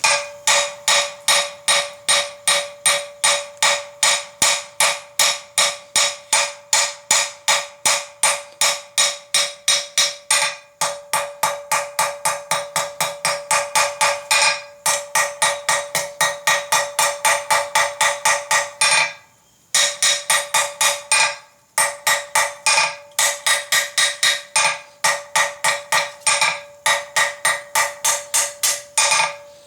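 Blacksmith's hammer striking hot 6 mm round steel bar on an anvil, drawing out a taper: quick, even blows about three a second, each with a clear ringing anvil tone. The hammering stops briefly a few times, the longest pause about two-thirds of the way through.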